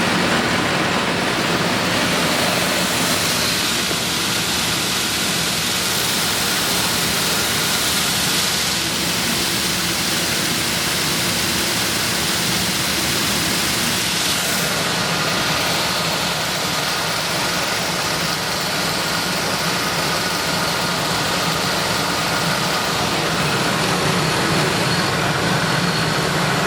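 Rice milling machine running steadily: a continuous mechanical hum and rushing noise that does not break or change.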